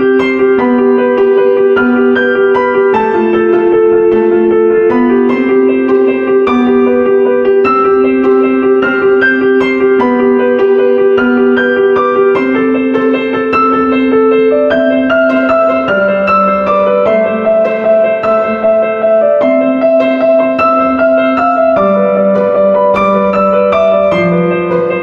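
Background piano music: a steady run of notes over sustained chords that change every second or two.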